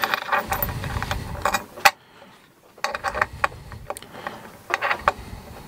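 Small metal parts clicking and scraping as screws and washers are fitted by hand into a metal 3D-printer block: a run of sharp clicks, the loudest about two seconds in, a short pause, then more clicks.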